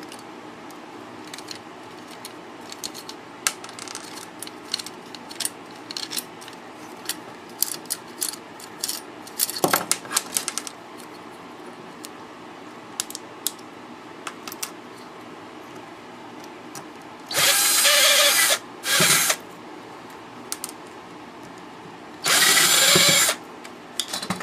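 Small metal clicks and clatter as a car stereo is taken apart by hand, then a power drill runs in three short bursts, the motor spinning up and down.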